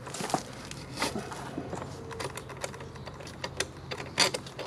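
Irregular light metallic clicks and taps of hand tools and bolts at a scooter's variator cover as the cover bolts are started back in, with one louder tap near the end.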